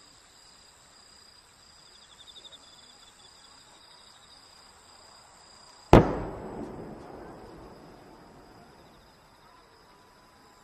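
A large aerial firework shell fired from its mortar: one sharp bang about six seconds in, echoing and dying away over a few seconds. Insects chirp steadily throughout.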